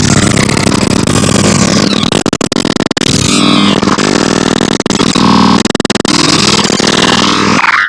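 Loud, dense electronic 'dark MIDI' ringtone music, so crowded with synthesized notes that it comes across as a harsh, noisy cacophony, with sweeping glides that curve up and down and brief held tones.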